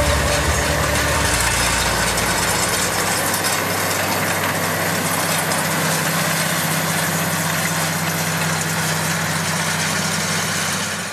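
Tractor engine running steadily with an even drone, fading out at the very end.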